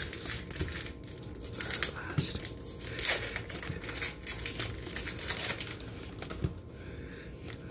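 Pokémon trading cards being handled, each card slid off a stack and flicked to the front, making an irregular run of quick papery rustles and snaps.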